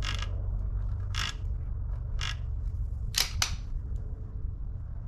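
Wind rumbling on the microphone, with five short sharp clicks, about one a second, the last two in quick succession a little after three seconds in.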